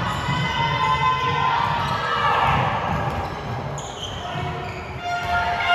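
A handball bouncing on the court floor during play, with spectators shouting and cheering.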